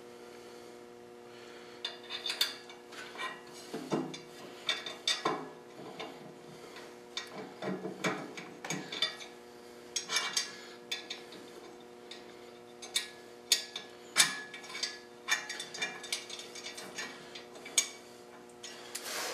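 Hand ratchet clicking in short spells, with light metal clinks, as quarter-inch bolts are drawn into the QD taper bushing on an aluminum fan hub.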